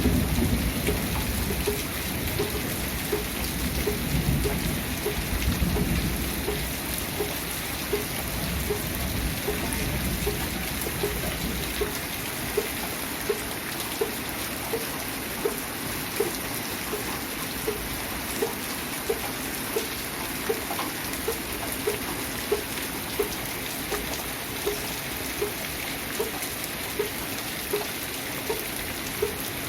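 Steady rain with thunder rumbling low in the first dozen seconds, then dying away. Through the second half a regular drip ticks above the rain, a little more than once a second.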